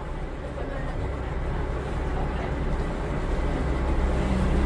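Tour boat's engine running steadily under way, a low drone with a rushing wash, growing gently louder.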